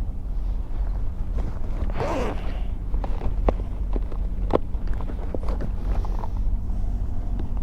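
Handling noises from tackle being worked by hand: a short rasping, zip-like scrape about two seconds in and a few sharp clicks and ticks, over a steady low rumble.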